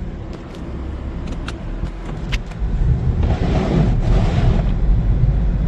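Car engine running under load as a car stuck in deep snow is driven free, with a low steady rumble. A rush of noise swells about three seconds in and dies away a second and a half later.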